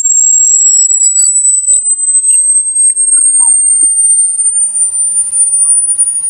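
Electronic rat-repellent sound: a loud, high-pitched steady tone that slowly rises in pitch, with fainter side tones dying away in the first second or so. It is meant to disturb rats and drive them away.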